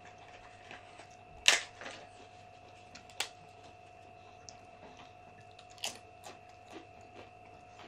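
Eating sounds: a scattering of sharp clicks and taps, the loudest about a second and a half in and another near six seconds, over a faint steady whine.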